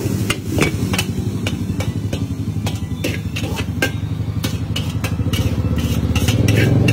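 Metal spatula clinking and scraping against a steel wok as a big batch of fried rice is stirred and scooped out, in irregular sharp knocks that come faster near the end. Under it runs a steady low drone.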